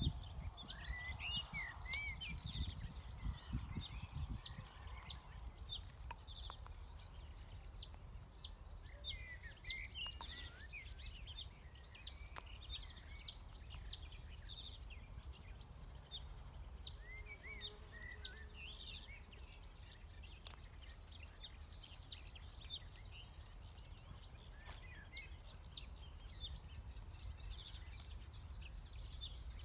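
Birdsong: a small songbird repeats short, high chirping notes, about two a second in runs with brief pauses, while other birds call more faintly and lower. Beneath them is a steady low outdoor rumble.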